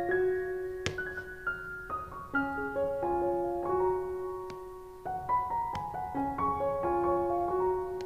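Background music: a gentle piano melody of held notes, with a few faint clicks.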